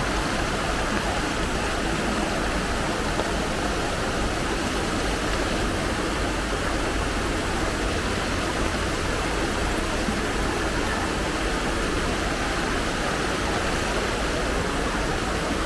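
Steady rush of water from heavy rain and fast-flowing floodwater, even and unbroken.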